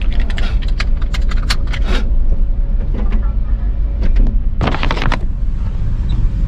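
GMC square-body pickup's engine running with a steady low rumble, heard from inside the cab. Over it come a quick run of clicks in the first two seconds and a short burst of rustling a little before five seconds in, from the camera being handled.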